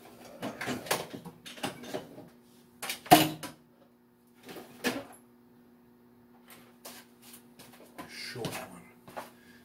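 Metal shop hardware being rummaged through by hand: a run of clanks and rattles in several bursts, the loudest about three seconds in, over a faint steady hum.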